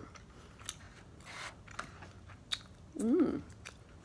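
Close-miked mouth sounds of a person chewing a mouthful of sushi, with a few sharp clicks spread through it. About three seconds in comes a brief hummed vocal sound, the loudest moment.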